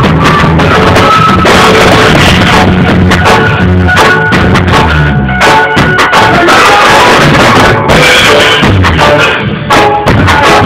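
Loud live band music: a drum kit keeping a steady beat under bass and an electronic keyboard.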